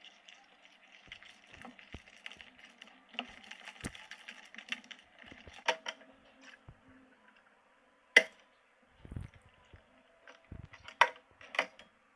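Plastic spatula stirring shaving foam and glitter in a glass bowl: faint crackling and squishing, then a few sharp clicks in the second half.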